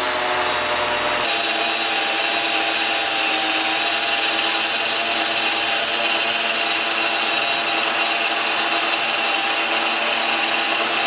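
Cordless drill running steadily under load, its twist bit boring a small pilot hole into a steel bar; a steady motor whine that shifts slightly in pitch about a second in.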